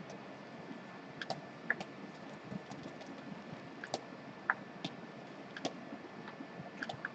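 Faint, irregular clicks and taps from computer input devices, about ten spread unevenly over several seconds, above a low steady hiss.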